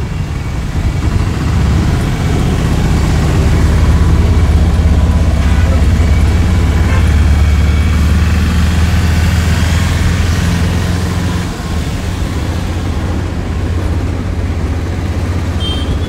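Auto-rickshaw's small engine running steadily under way, heard from inside the open cab with road and traffic noise around it; it gets louder about two seconds in and eases back after about eleven seconds.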